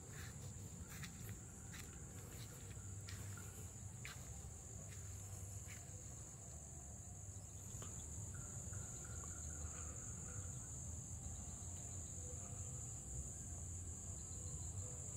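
Steady, high-pitched insect chorus, one unbroken shrill tone, with a low rumble beneath and a few light clicks in the first half.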